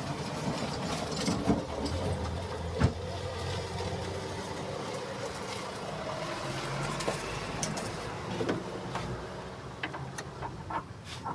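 An engine running steadily, with scattered clicks and knocks, a sharp knock about three seconds in.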